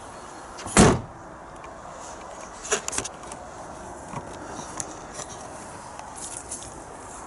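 One loud, heavy thump about a second in, followed by a few light clicks and rattles around three seconds in.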